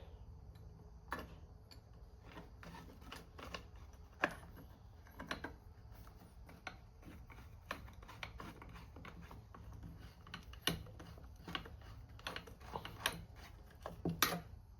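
Irregular light clicks and taps of small metal parts, screws and hand tools being handled while two fasteners are started back into a chainsaw's housing.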